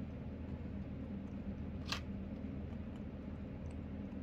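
Galah eating fried egg off a plate: faint beak ticks and one sharp click about two seconds in as the beak strikes the plate.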